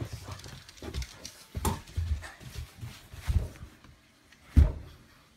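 A French bulldog scuffling about over a carpeted floor, with irregular knocks and thumps, the loudest about four and a half seconds in.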